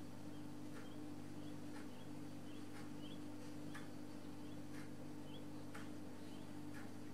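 A clock ticking about once a second over a steady low hum, with faint short high chirps between the ticks.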